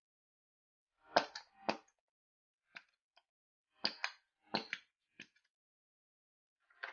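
Clear-glue crystal slime being worked, giving sharp, wet clicks and smacks that come in irregular clusters of two or three with short pauses between.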